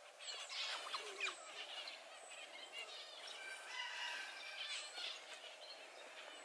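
Faint high chirps and squeaks from a group of Asian small-clawed otters, over a soft steady hiss of background noise.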